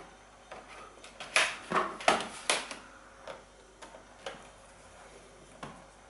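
Plastic memory-bay cover being pressed back into place on the underside of a Lenovo ThinkPad T420 laptop: a string of light plastic clicks and knocks, four louder ones close together about one and a half to two and a half seconds in, then a few fainter taps.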